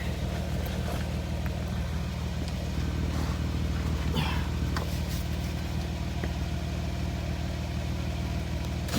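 An engine idling with a steady low hum, with a few faint clicks and scrapes over it a few seconds in.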